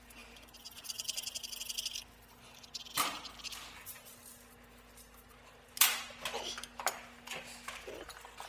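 A fast, high rattle for about two seconds, then a sharp knock and, later, several more knocks and clanks, over a faint steady hum.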